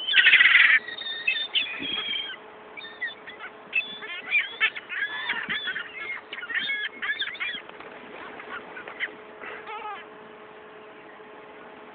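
A flock of seagulls calling and squawking over one another as they fight over food, with a loud burst of calls right at the start. The calls thin out and stop about ten seconds in, leaving a faint steady hum.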